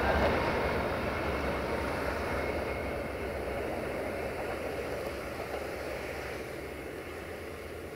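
Passenger train rolling away, its low rumble fading steadily as it recedes.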